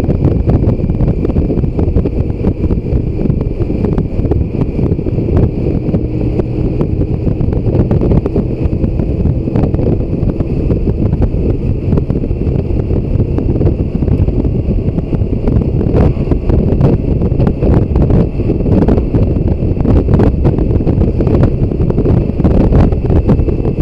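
Steady low wind rumble on the microphone of a BMW K1600 GTL motorcycle riding at road speed, with the bike's inline-six engine running underneath.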